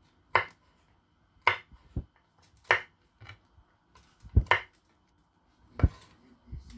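Chef's knife trimming the ends off fresh green beans on a wooden cutting board: a string of separate crisp snaps and dull knocks of the blade on the wood, about a second apart.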